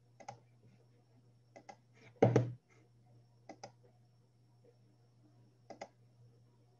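Computer mouse clicking: single clicks and two quick double-clicks, over a faint steady low hum. About two seconds in there is one short, louder thump.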